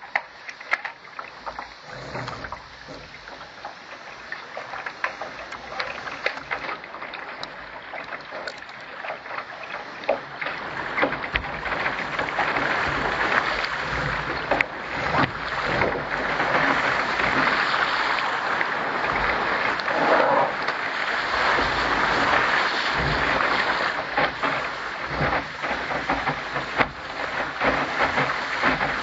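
Water rushing and splashing against the hull of a Contender sailing dinghy under way, with many small slaps. It grows louder from about ten seconds in.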